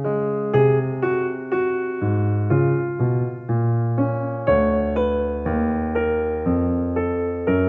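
Background piano music, notes struck about twice a second.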